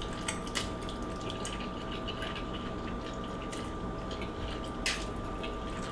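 Two people slurping noodles: wet sucking and smacking sounds with many small clicks, the sharpest near five seconds in.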